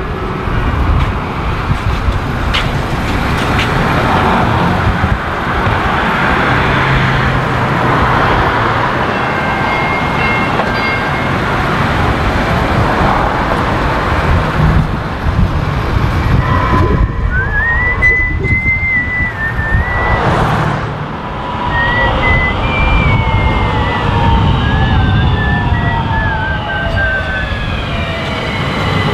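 City street noise: traffic with a steady low rumble. About halfway through a high wavering tone comes in, followed by several slowly falling tones from something passing.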